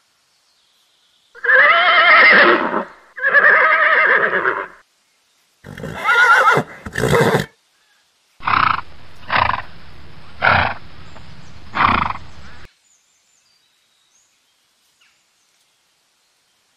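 Horses whinnying. There are two long, quavering whinnies, then two shorter calls, then a run of four short calls; the calling stops about two-thirds of the way through.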